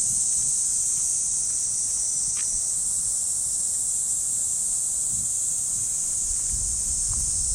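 Steady high-pitched drone of cicadas singing in the trees. Soft footsteps on the path come through near the start and again toward the end.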